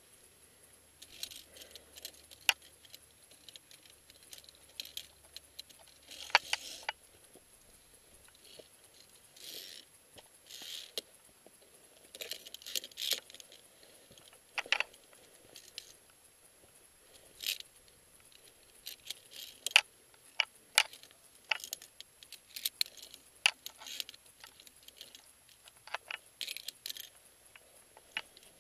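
Via ferrata climbing gear clinking and scraping against a steel safety cable and rock, heard as irregular sharp metallic clicks and short scrapes.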